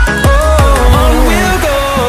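Electronic dance music: a kick drum on the beat, about two a second, drops out less than a second in. A gliding, pitch-bending synth lead carries on over sustained bass.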